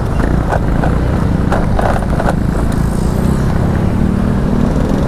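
Motor vehicle engine running with heavy road and wind noise, heard from on board as it makes a turn. A few short knocks come in the first couple of seconds, and the engine note rises slightly about halfway through.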